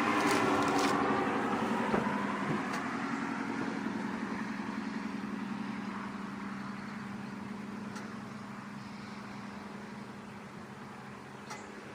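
Nissan 350Z's V6 engine idling steadily, its level easing off slowly over the stretch.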